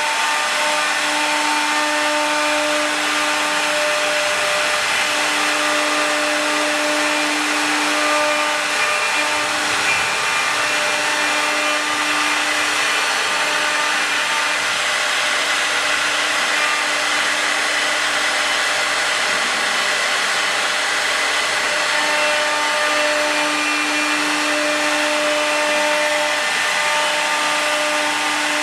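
Multi-spindle 4-axis rotary CNC router's 3 kW air-cooled spindles running and rough-cutting, a steady loud whirring hiss. A steady whine comes and goes every few seconds as the cut changes.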